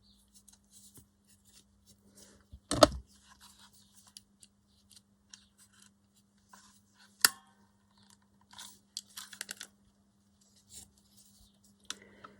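Paper and small craft tools handled on a work table: light rustling and snipping, with one heavy thump about three seconds in and a sharp click about seven seconds in, over a faint steady hum.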